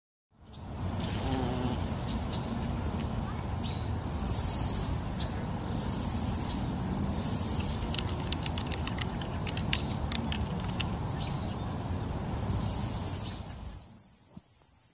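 Outdoor-style ambience: a steady hiss under a thin high whine, with a short falling chirp repeating about every three and a half seconds and a quick run of clicks about eight seconds in, fading out near the end.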